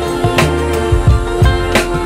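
Background music with a steady drum beat and a deep bass line under sustained instrumental tones.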